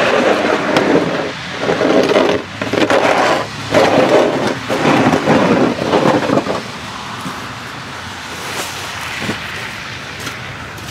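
Snow shovel scraping over wet, slushy pavement as it pushes snow, in about five long strokes with short breaks between them; a little over six seconds in it drops to a quieter, steady hiss.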